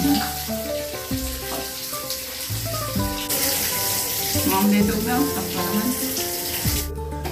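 Background music with a steady hiss of running shower water under it. The water grows louder about three seconds in and cuts off abruptly near the end.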